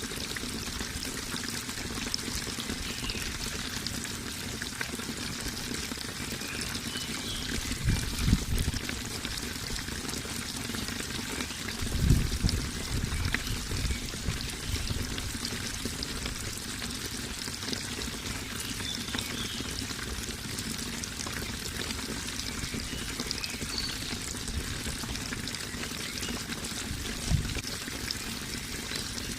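Running water, flowing steadily, with a few brief low rumbles about 8 and 12 seconds in and again near the end.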